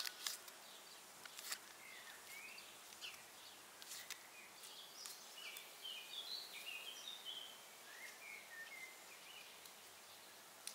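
Faint small-bird chirping, a quick run of short chirps falling in pitch through the middle, over a steady low hiss, with a few sharp clicks near the start.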